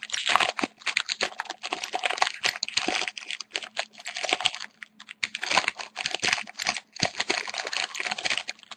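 A hockey card pack's wrapper being worked at and torn open by hand: a dense, irregular run of crinkles, crackles and clicks. The pack is stubborn and hard to open.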